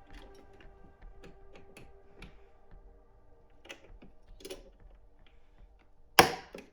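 Scattered small clicks and taps of a CPU cooler being handled and fitted onto a motherboard, with one loud snap about six seconds in. Faint background music underneath.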